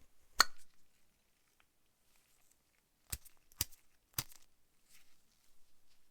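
Sharp small metal clicks of the restored brass trench lighter being handled: one click, then three more about half a second apart.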